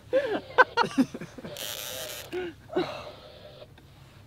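An exhausted angler grunting and breathing hard while fighting a heavy halibut on a bent rod, with the reel's mechanism rasping for about a second midway. The strained vocal sounds come mostly in the first second and twice more briefly near the three-second mark.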